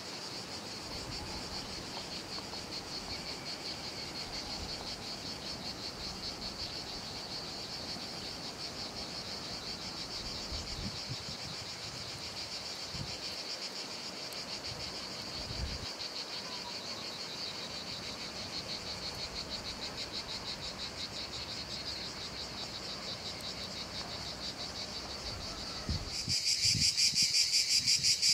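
A chorus of insects chirring in a steady, high-pitched pulsing drone. About two seconds before the end it becomes suddenly louder and more sharply pulsed, as if a nearer insect is calling.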